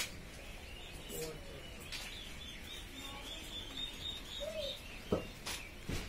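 A brood of young chicks peeping continuously in high, thin calls, with a few sharp ticks and one louder peep near the end.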